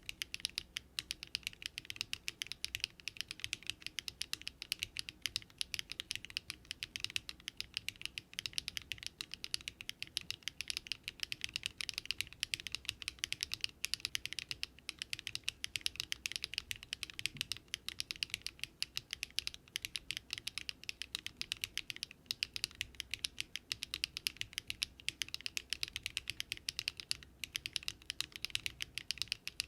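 Rapid, continuous typing on a Daring Run Polygon-7 custom mechanical keyboard built with Luminkey Astral switches, no foam and an FR4 plate.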